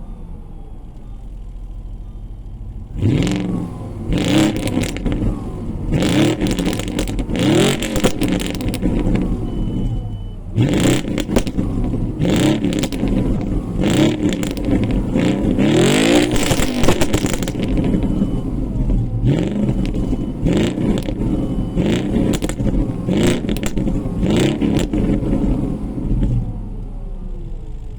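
Audi Q7 4.2 FSI V8 with its catalytic converters removed, revved over and over, popping and crackling from the exhaust as the revs fall. It idles for about the first three seconds and settles back to idle near the end.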